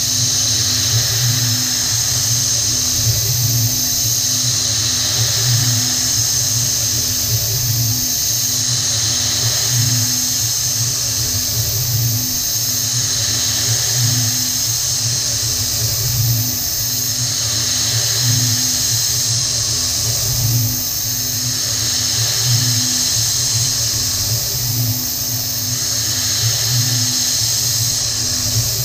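PM30-MV milling machine spindle running while a drill bit cuts into an aluminium part, a steady high whine over a low hum that swells about every second and a half.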